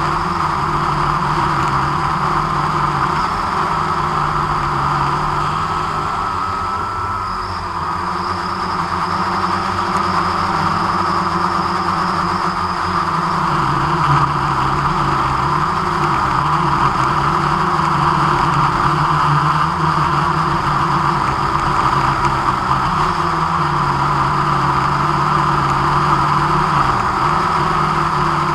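Drone's motors and propellers humming steadily at close range, several pitches held at once with small shifts in pitch now and then.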